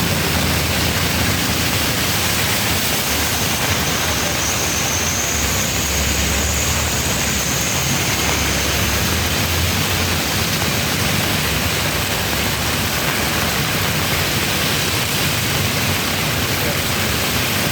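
Heavy monsoon rain pouring steadily, a dense, even hiss. A low rumble swells about six seconds in and fades a few seconds later.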